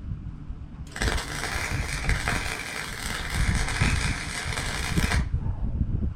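Electric welding arc crackling steadily as a sidewall is welded onto the furnace's base plate. It starts about a second in and cuts off abruptly after about four seconds.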